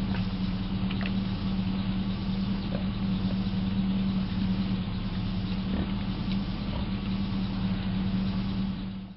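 A steady low engine or motor hum with a few faint short sounds over it. It cuts off suddenly near the end.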